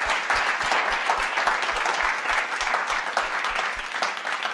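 Audience applauding, many hands clapping in a dense, steady patter that eases slightly near the end.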